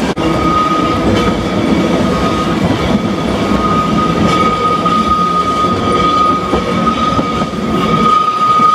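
Manx Electric Railway heritage electric tramcar running along the track: a loud steady rumble with a steady high whine over it and faint clicks of the wheels over the rail joints.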